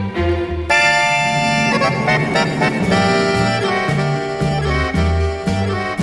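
Orchestral tango music with an accordion playing sustained chords over a pulsing bass line; a full, loud chord comes in just under a second in.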